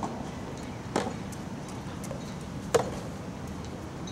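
Soft tennis rally: the soft rubber ball struck by rackets, a fainter hit about a second in and a louder, sharp one near three seconds.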